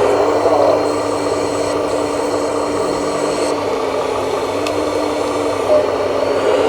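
Small electric motors and gearboxes of radio-controlled construction models running steadily, a whine with a rattle over it. A faint high whine comes in about a second in and stops halfway through, and there is a light tick near the end.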